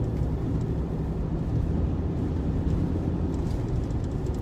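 Steady engine and tyre noise inside a car's cabin at about 45 mph on a plowed, snowy highway, with the heater fan blowing on defrost.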